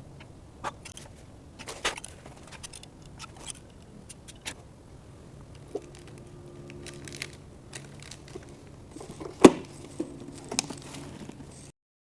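Scattered light clicks and taps from hands handling parts, with a sharper knock about nine and a half seconds in; the sound cuts off just before the end.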